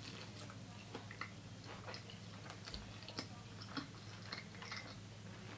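Close-miked chewing of a fried chicken tender: faint, irregular mouth clicks and smacks, over a steady low hum.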